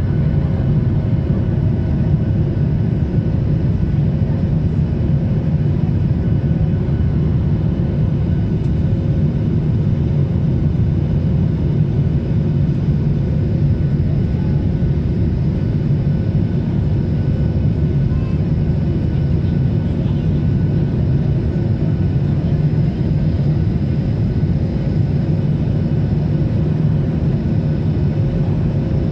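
Jet airliner cabin noise heard from a window seat over the wing: the steady, deep rush of the jet engines and airflow, with a faint steady hum on top.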